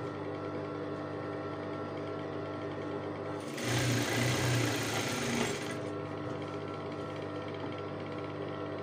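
Electric sewing machine humming steadily with its motor running, with a louder stretch of stitching about three and a half seconds in that lasts about two seconds, as it sews the folded elastic casing at the waistband of cotton trousers.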